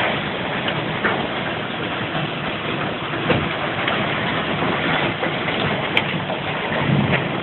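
A severe storm's wind and rain making a loud, steady roar, with short sharp ticks scattered through it.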